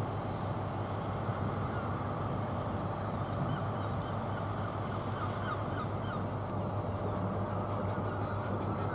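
Diesel engine of a stationary High Speed Train idling, a steady low hum with no change. Faint short bird calls sound over it around the middle.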